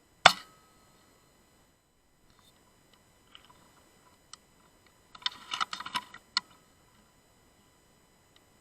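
A single shot from an FX Impact Mark II .177 pre-charged pneumatic air rifle: one sharp crack that dies away within half a second. Light clicks follow, a few at first and then a quick cluster about five to six seconds in.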